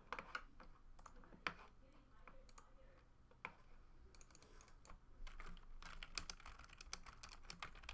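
Faint typing on a computer keyboard: a few scattered keystrokes, then quick, continuous typing from about five seconds in.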